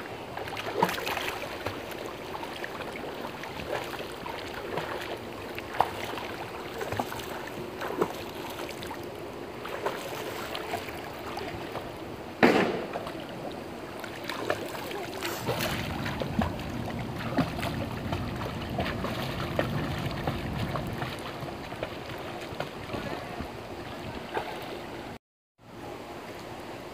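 Pool water splashing and lapping as a child kicks and paddles along in an inflatable swim ring, with many small splashes and one sharper knock about halfway through. The sound cuts out briefly near the end.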